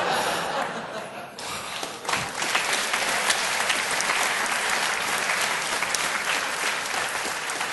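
Live studio audience applauding after a punchline, the clapping swelling about two seconds in and then going on steadily.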